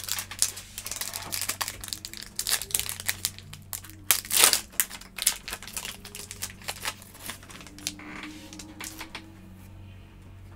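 Foil wrapper of a football trading-card pack crinkling and tearing as it is opened by hand: a quick string of sharp crackles, loudest about four and a half seconds in, thinning out near the end.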